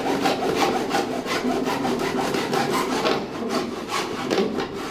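Hacksaw blade cutting through a drain pipe by hand in quick back-and-forth strokes, several a second, to free the clogged old P-trap for replacement.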